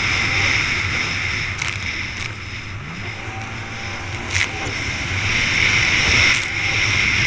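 Racing jet ski running at speed over choppy water: engine and jet wash buried in heavy wind and spray noise on the onboard microphone, with several sharp slaps as the hull hits waves.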